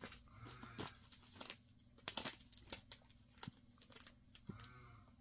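Clear plastic comic-book bags crinkling and crackling as bagged comics are handled and shuffled, in a string of short, irregular rustles.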